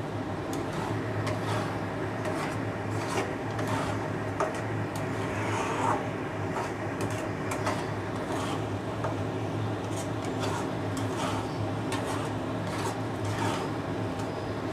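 A spatula scraping and stirring thick soybean paste around a non-stick kadai in repeated strokes, a little under two a second. The paste is being stirred over high heat until its water cooks off and it firms into a dough-like mass.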